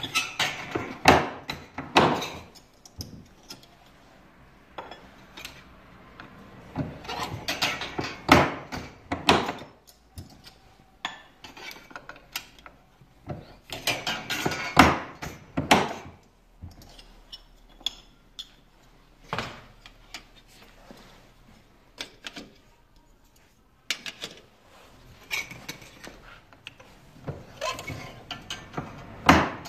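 Hand-lever Schlebach FHS clip-forming machine being worked: the lever mechanism and the metal strip clank and click as the strip is bent into a standing-seam roofing clip. The clanks come in bursts a few seconds apart.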